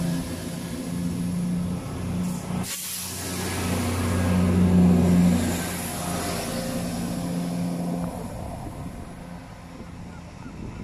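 Southern Class 377 Electrostar electric multiple unit passing at close range: a steady electric hum with several fixed low tones over wheel and rail noise. It is loudest about four to five seconds in and fades away after about eight seconds.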